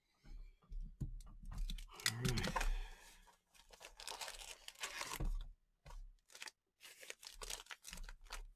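Cardboard trading-card hobby box being torn open by hand and its foil-wrapped packs handled: irregular tearing, crinkling and clicking of cardboard and foil.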